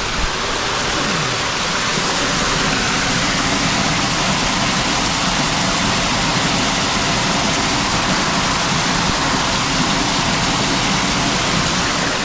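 Storm water rushing steadily out of a drainage outfall pipe: runoff collected by the channel drain and gutter being discharged.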